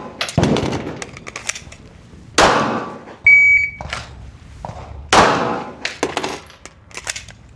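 Glock 17 Gen 6 9mm pistol fired three single shots a couple of seconds apart, each a sharp crack with a short ringing tail. A short electronic beep sounds about a second before the third shot.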